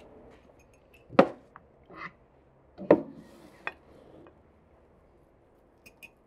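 Cutlery clinking against plates and glasses at a meal table: two loud clinks and a scatter of lighter taps and scrapes.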